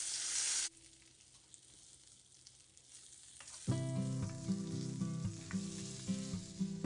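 Eggplant slices frying in hot mustard oil in a non-stick pan. A loud sizzle for under a second as a slice goes into the oil, then a faint, steady frying hiss. About halfway through, background acoustic guitar music comes in with a plucked, rhythmic beat.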